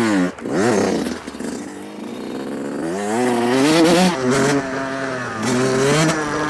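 Dirt bike engine revving: two quick blips of the throttle at the start, then accelerating with the pitch climbing about three seconds in, dipping and rising again as it pulls away.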